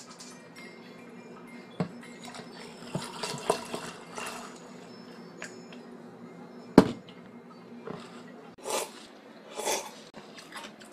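Cola being poured from a plastic bottle over ice into a glass, with a fizzing hiss. Past the middle comes a single sharp knock of glassware set down on a table, and near the end there are drinking sounds from the glass.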